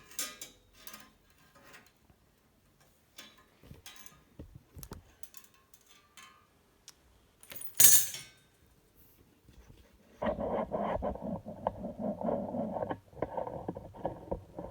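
Handling of tools and a steel bicycle frame: scattered light clicks and taps, and one sharp clank about eight seconds in. Then a rough, continuous noise for about four seconds near the end, with a short break in the middle.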